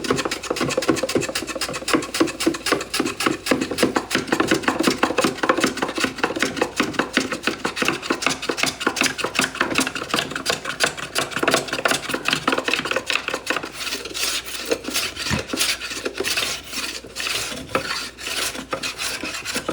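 Wood being worked by hand with an abrasive, a rasp or sandpaper, in quick, steady back-and-forth strokes that run without a break, easing a part of a wooden toolbox so the tools fit.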